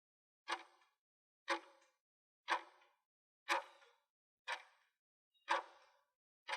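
Clock-ticking sound effect: seven sharp, evenly spaced ticks, one each second, each with a short ringing tail. It is typical of a countdown timer giving time to answer a multiple-choice question.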